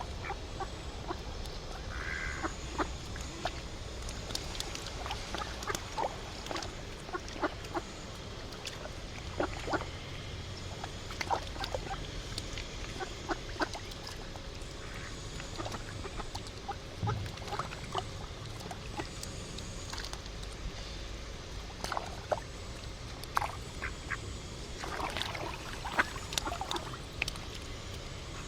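Ducks quacking on and off, many short scattered calls over a steady low background rumble.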